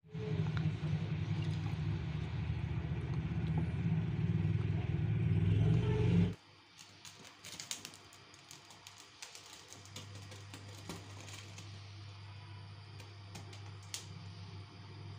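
A loud, steady low rumble that cuts off suddenly about six seconds in. Then comes a quieter stretch of scattered sharp ticks and crackles from the chicken's leftover hair-like feathers being singed over a gas stove burner flame. A faint steady hum runs under the crackles from about ten seconds in.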